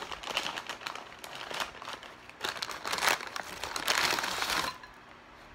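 Paper fast-food fry bag crinkling and rustling as it is handled and shaken. The rustling is loudest for about a second toward the end, then dies down.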